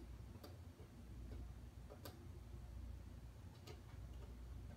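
Faint, sharp plastic clicks, a few of them spaced about a second and a half to two seconds apart, from a cat at a Frolicat rotating laser toy, over a low steady hum.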